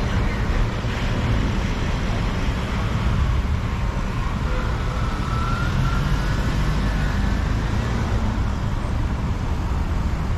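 Steady low rumble of road traffic, with a faint wavering siren about halfway through.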